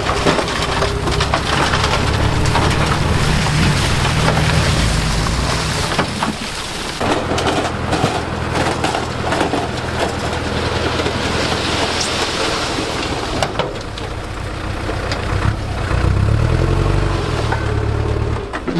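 Heavy earthmoving machinery at work: a diesel engine rising in revs under load twice, amid loud, continuous crunching and knocking of soil and stones being moved.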